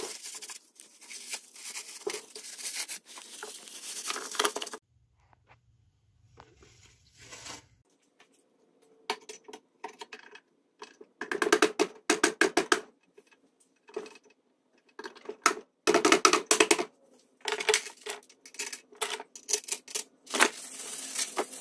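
Metal clicking and rattling from hand work on a Predator 212cc engine's crankcase as the side cover is fitted and its bolts are set in place, with several quick runs of clicks.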